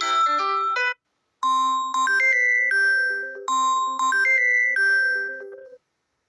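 Samsung Galaxy A04 ringtones. A quick run of notes from one ringtone ends about a second in. After a short gap a different ringtone starts, and its short melody plays twice.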